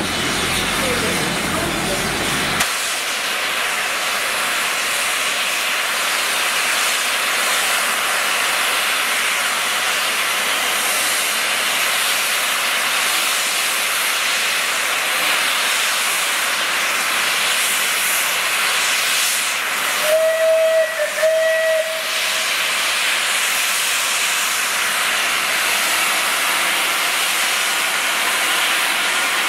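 Steam locomotive 35028 Clan Line, a rebuilt Merchant Navy class Pacific, standing with steam hissing loudly and steadily as it blows off. About twenty seconds in, its whistle gives two short toots.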